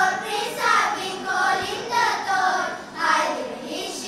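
A children's choir singing a Romanian Christmas carol (colind) in phrases of held notes.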